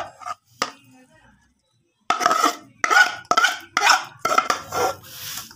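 A steel spoon scraping and mixing sesame seeds into thick, set jaggery syrup in a steel pan. It begins with a couple of clicks; from about two seconds in come about six strong scraping strokes, roughly two a second.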